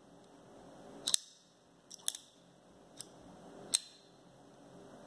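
SRM 255L folding knife with a G10 handle and ambi lock, its blade being worked open and shut by hand: a series of sharp metallic clicks as the blade snaps over and the lock engages, a loud one about a second in, a quick double click near two seconds, a faint one near three and another loud one near the end.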